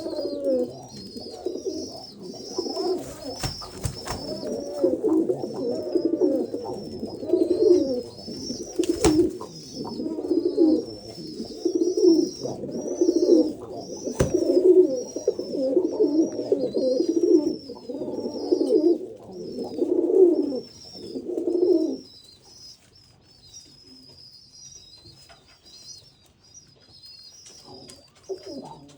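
Orlik Lubelski pigeons cooing in repeated low phrases. The cooing drops away a little over two-thirds of the way through. A high chirping runs throughout, with a few sharp knocks early on and in the middle.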